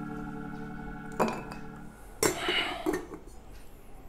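Ice cubes and metal tongs clinking in a metal ice bucket: a lingering metallic ring, then a few sharp clinks, the loudest about two seconds in with a brief rattle of ice after it.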